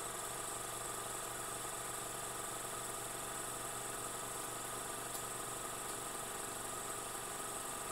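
A steady hum of several held tones over a constant hiss.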